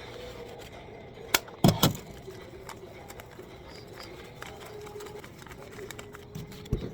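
A sharp click and then a louder knock about a second and a half in, and a low thud near the end, from handling a vending machine's cash box. Under them runs a low steady hum.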